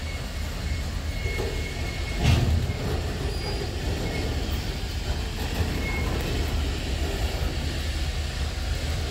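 Freight train tank cars rolling slowly past: a steady low rumble of wheels on rail, with a single thump about two seconds in.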